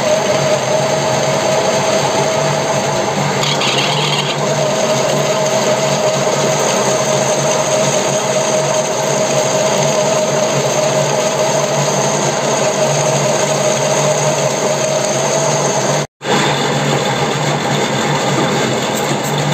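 Metal lathe running steadily while a boring bar cuts inside a spinning workpiece to internal-thread size, a continuous machine hum with a steady whine. A brief higher-pitched whine comes in about three and a half seconds in, and the sound cuts out for a moment near the end.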